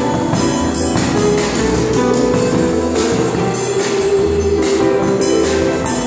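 Live music: a grand piano being played, with percussion hits on a steady beat of about two a second.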